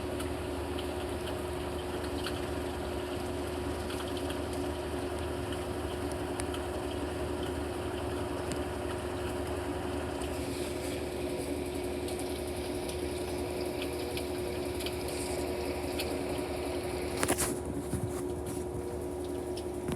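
Whirlpool 22 kg washing machine in its spin cycle: the drum spinning at a steady speed with a constant motor hum. A brief clatter about seventeen seconds in.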